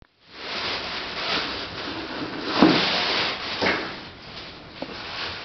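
Camera beltpack being handled: fabric rustling and shuffling, with two louder bumps about two and a half and three and a half seconds in.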